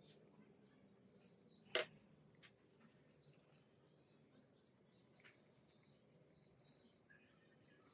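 Faint, high, irregular chirps like small birds calling, with one sharp click a little under two seconds in.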